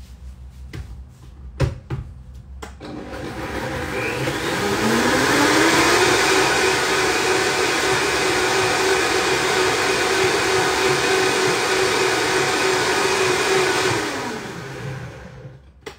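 Countertop blender blending a liquid satay dressing of water, sesame seeds, coconut milk and seasonings: the motor winds up over a couple of seconds, runs steadily for about eight seconds, then winds down. Two knocks come just before it starts.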